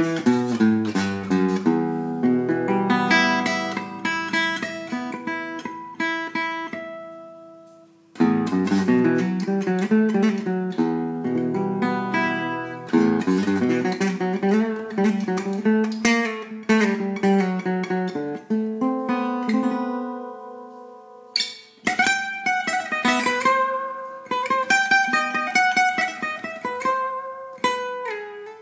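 Solo gypsy jazz guitar improvising: plucked chords and single-note runs, twice left to ring and fade out (about eight seconds in and again around twenty seconds) before playing resumes.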